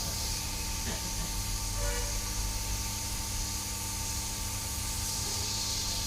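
Hot-air rework blower running with a steady hiss of air while it heats the solder on a phone's charging socket to desolder it.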